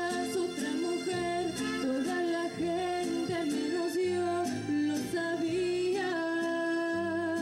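A woman singing a melody into a microphone over instrumental accompaniment with a beat, holding one long note near the end.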